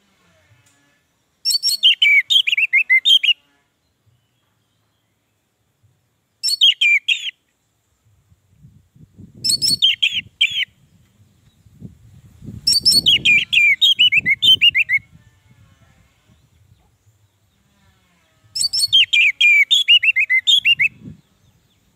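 Orange-headed thrush singing: five bursts of rapid, quickly sliding high notes, separated by pauses of a few seconds, the longest burst lasting about two seconds.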